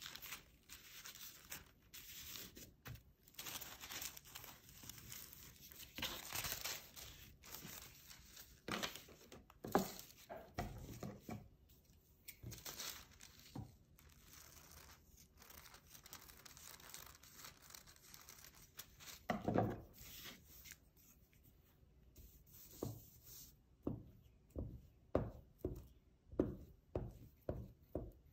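Tissue paper rustling, crinkling and tearing as sheets are handled and pressed into place. Near the end comes a quick series of short strokes, about two a second.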